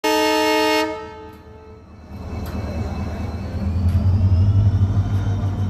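A WDP4D diesel locomotive sounds its horn in one short blast of just under a second, which dies away. Then the low hum of its EMD 16-cylinder two-stroke diesel engine builds and runs steadily.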